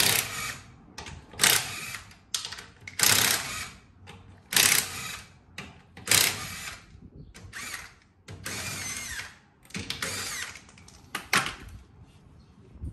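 Cordless impact wrench hammering the lug nuts off a truck's front wheel in short bursts, about one every second and a half, then a few more spaced further apart.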